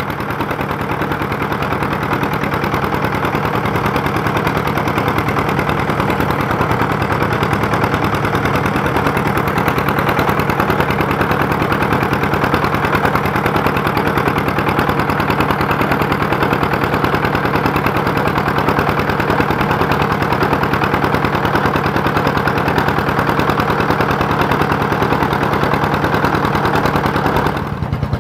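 Small boat's engine running steadily at an even pace, with a brief drop in level near the end.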